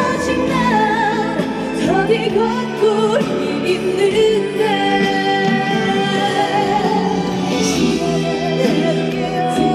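Live ballad music: a woman singing a slow melody over a backing track, holding one long note in the middle.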